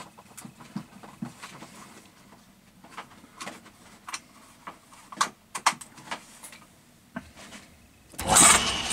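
Scattered light clicks and knocks as a mains plug and cable are handled and plugged in, then near the end a loud rushing noise lasting under a second as the lathe's single-phase induction motor is switched on through the drum reversing switch.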